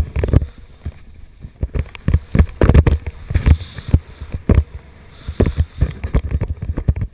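Skis hissing and scraping through snow on a fast downhill run, with wind buffeting the helmet camera's microphone in irregular loud gusts.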